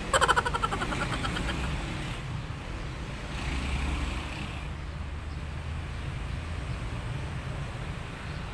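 Low steady rumble of road traffic, swelling briefly as a vehicle goes by a few seconds in, with a short louder burst of sound just after the start.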